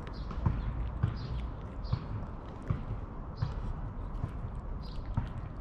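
Cat eating wet chicken-in-jelly food close up: irregular wet smacks and small clicks of chewing, roughly one or two a second.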